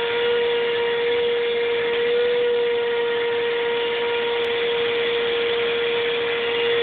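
Vacuum cleaner running steadily: a constant whine over a rush of air, its pitch rising slightly for a moment about two seconds in.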